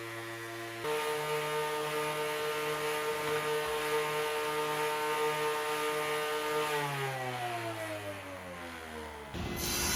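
Woodworking power tool motor running with a steady whine, then spinning down, its pitch sliding lower over the last few seconds. Near the end a rough, even noise takes over.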